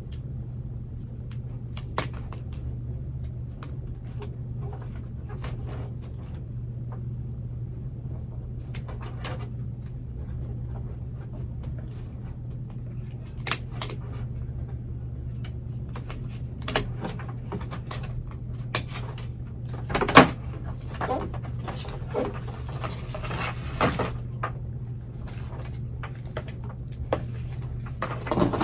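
Scissors snipping and cracking through a plastic orchid basket pot: irregular clicks and cracks, busiest in the second half and loudest about twenty seconds in, over a steady low hum.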